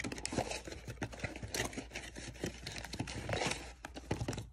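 Plastic packaging crinkling and rustling, with many small clicks and taps, as the parts of a new piston kit are unpacked by hand.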